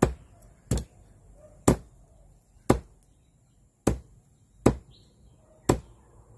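Large kitchen knife chopping a boiled chicken neck into pieces on a wooden stump chopping block: seven sharp knocks about a second apart.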